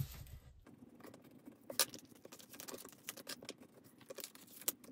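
Faint scattered clicks and rustles of paper card labels being handled and slid into the clear plastic pockets of a photocard binder, with a sharper tick about two seconds in and again near the end.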